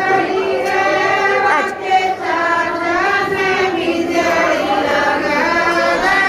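A group of women singing a traditional wedding folk song together, many voices overlapping. There is a brief bump about two seconds in.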